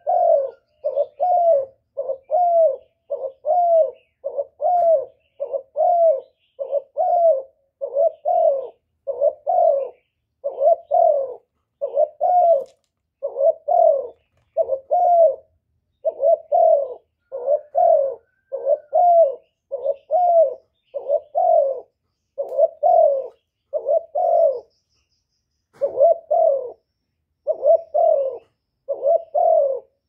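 Spotted dove cooing over and over, a short low coo repeated about three times every two seconds, with a brief break about 25 seconds in and another near the end.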